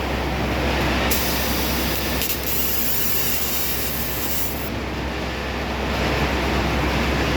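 Reith double hop baling press running, a steady machine hum with a low drone underneath. About a second in, a high hiss starts and lasts about three and a half seconds.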